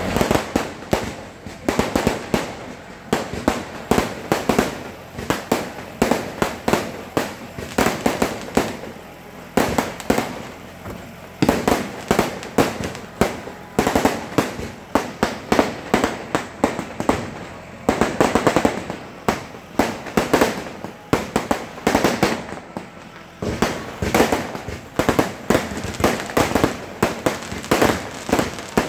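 Fireworks going off in quick succession overhead: a steady barrage of sharp bangs, several a second, in clusters with brief lulls between them.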